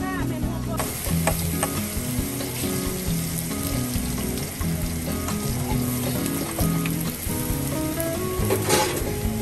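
Meat frying on a round flat-top griddle: a steady sizzle that starts about a second in, with a brief louder hiss near the end.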